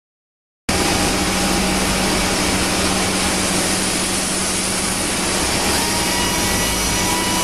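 High-speed router spindle on a Panasonic six-axis robot, running steadily as it trims a moulded plastic part, with a steady low hum beneath. It starts suddenly under a second in, and a fainter higher whine joins about six seconds in.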